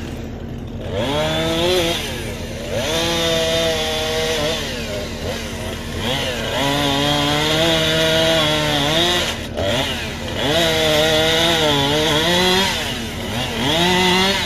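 Two-stroke chainsaw revving in repeated bursts of a few seconds, its pitch dipping and recovering within each burst, over a steady low hum.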